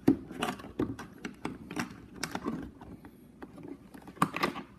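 Clear plastic blister packaging crinkling and clicking under a hand as it is pressed and pulled at, in irregular crackles, with the sharpest clicks right at the start and about four seconds in.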